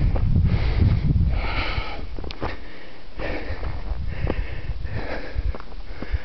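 A person breathing hard and audibly close to the microphone, one breath about every second, with a low rumble during the first second.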